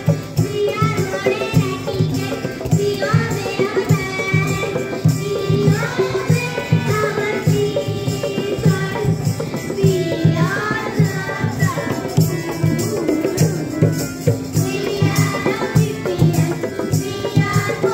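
Children singing a song into a microphone, accompanied by harmonium and tabla, with the drums keeping a steady beat.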